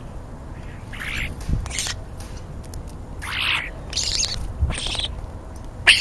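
European starlings giving a handful of short, harsh, rasping squawks at close range, with a sharp click just before the end.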